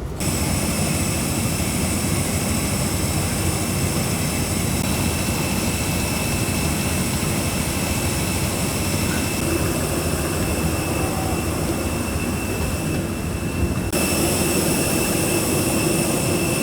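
Jet aircraft running steadily: a constant high whistling whine over a low rumble. The sound shifts abruptly about 14 seconds in.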